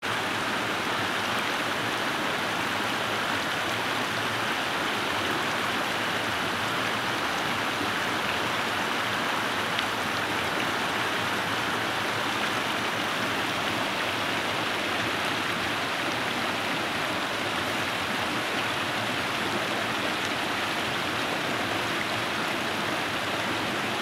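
A rocky woodland stream running over stones: a steady, even rush of water.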